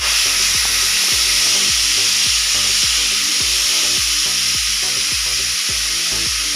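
Pressure cooker whistle letting off steam: a loud, steady hiss that starts suddenly and holds, with music playing faintly beneath.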